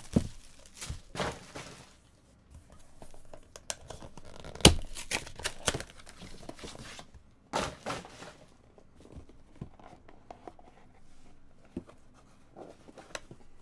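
A sealed cardboard trading-card box being opened by hand: rustling packaging, a paper seal tearing and scattered clicks and knocks of the box, with one sharp knock about four and a half seconds in. The handling grows quieter in the last few seconds.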